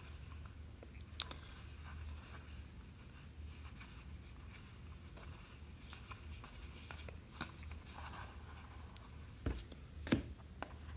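Faint rustling and light clicking of trading cards being flipped through by hand, over a low steady hum, with two sharper taps near the end.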